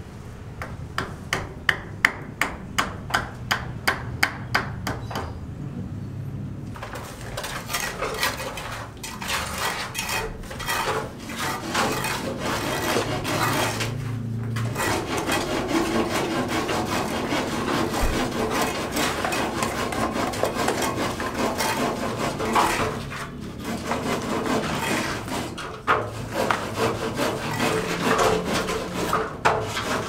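Hammer blows, about three a second, for the first five seconds, then a long stretch of scraping and rubbing of tools against cement and buckets.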